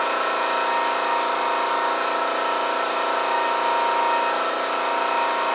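Steady machine drone in a workshop, a constant hum with a whine of several fixed pitches that holds level without change.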